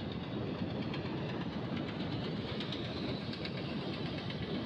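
Steady rush of wind and road noise from a motorcycle riding along a highway at speed, with a brighter hiss and faint rapid ticking in the middle.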